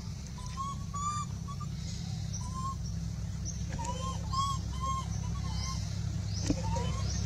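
Animal calls: a string of short, arched, whistle-like notes, several in quick succession, over a steady low rumble.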